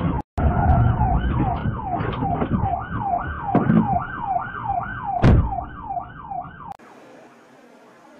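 Police car electronic siren in yelp mode, rising and falling about two and a half times a second over the car's engine and road noise. A sharp thump comes about five seconds in. The siren cuts off abruptly near the end, leaving only faint background noise.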